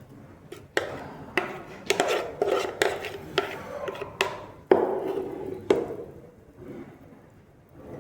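A spoon clinking and scraping against a bowl, stirring paneer cubes with masala and grated cheese: a run of sharp knocks about twice a second that stops near the six-second mark.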